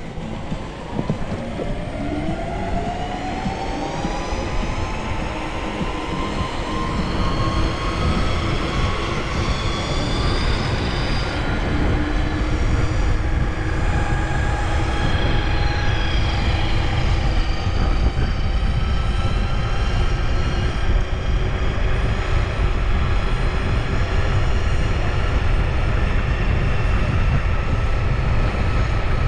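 Vsett 10+ electric scooter's dual hub motors whining as it accelerates to speed. Several tones climb in pitch over about the first ten seconds, then hold with small shifts, over a low rumble of wind and road noise that grows louder.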